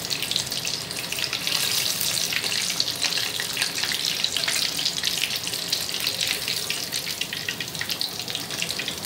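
Breaded chicken strips deep-frying in a pan of hot oil: a steady sizzle full of fine crackling.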